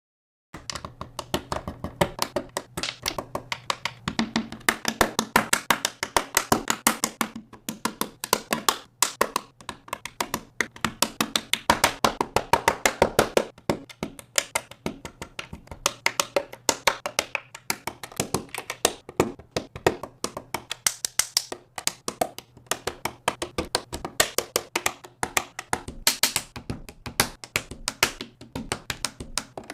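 Plastic Lego bricks clicking and clattering as they are handled and pressed together: a dense run of small sharp taps, many a second, over a faint steady hum.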